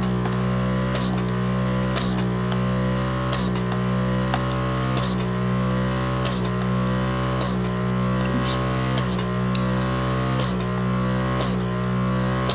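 Vacuum pump of a desoldering iron running with a steady mechanical hum, with sharp clicks about once a second at irregular spacing as switch solder joints are sucked clear one after another.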